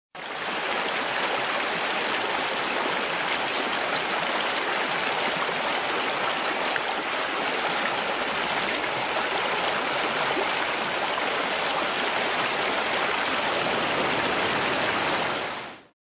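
Fast-flowing creek water rushing, a steady even hiss. It starts abruptly at the beginning and cuts off just before the end.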